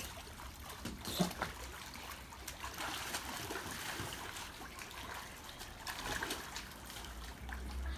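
Water splashing and trickling in a shallow inflatable pool as children move about in it, with small irregular splashes.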